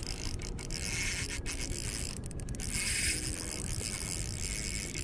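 Shimano Stradic spinning reel being cranked against a hooked fish, its gears and line rolling over the spool in a continuous mechanical whirr.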